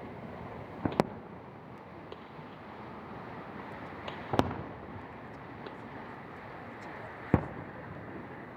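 Aerial firework shells bursting, three sharp bangs about a second, four seconds and seven seconds in, some doubled, over a steady background hiss.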